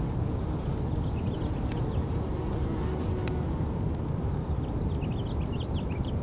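Steady low wind rumble on the microphone, with bumble bees buzzing around their ground nest. A few short high chirps come through about a second and a half in and again near the end.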